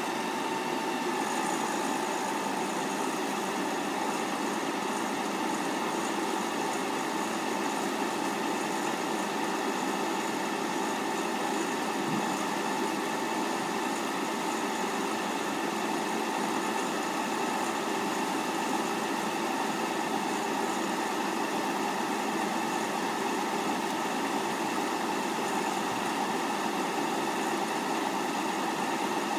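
Tractor engine running steadily at one constant speed while the trailer's hydraulics hold the tipping body raised, with a steady hum and no change in pitch.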